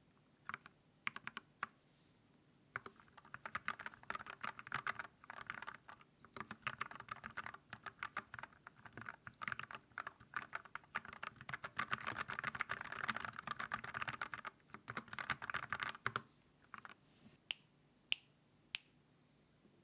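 Typing on an Everglide SK87 tenkeyless keyboard fitted with lubed Gateron Milky Yellow linear switches and XDA keycaps: fast, dense runs of keystrokes, with a few louder single clicks near the end.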